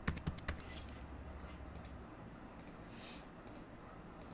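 Faint computer keyboard keys tapped in a quick run, then a few scattered mouse clicks.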